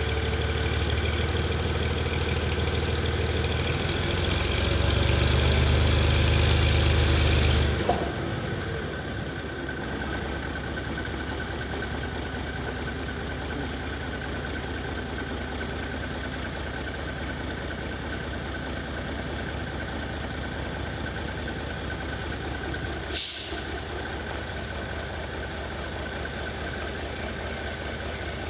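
Diesel locomotive engine running, getting louder about four seconds in, then dropping back abruptly just before eight seconds to a steady idle. A brief sharp hiss comes about 23 seconds in.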